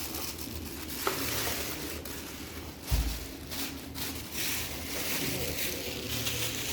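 Test material playing through a GOVO GoSurround 950 soundbar and subwoofer: a hissing, crackling texture throughout, a sharp click about a second in, and one deep bass thump from the subwoofer just before three seconds.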